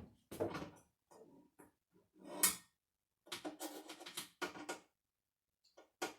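A screwdriver and small metal hardware clicking and scraping as a rough-threaded screw is worked into a router table leg. The sounds come in short, irregular strokes, with one louder scrape about two and a half seconds in and a last click near the end.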